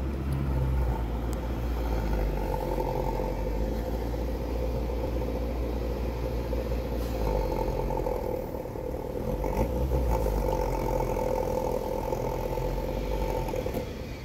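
Domestic cat purring close up while being stroked, the purr swelling and easing in stretches of a second or two, with a steady hum behind it.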